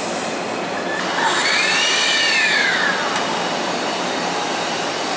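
Hankyu 1000-series electric train starting off. The motor inverter gives a whine that rises and then falls in pitch over about two seconds, beginning about a second in, over a steady hiss.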